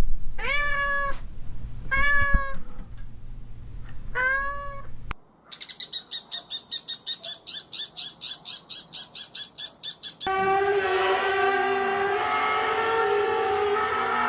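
A cat meowing three times, each call short and separate. After a cut comes a fast, even high-pitched pulsing, about eight pulses a second, for about five seconds, then a steady droning tone for the last few seconds.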